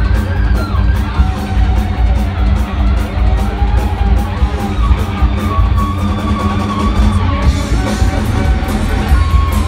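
Live rock band playing loudly: electric guitars with long held lead notes over drums and a steady cymbal beat.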